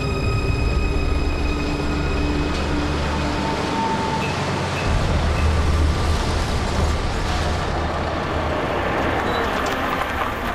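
A vehicle in motion, a steady heavy rumble with rattling noise. Background music fades out at the start and comes back in near the end.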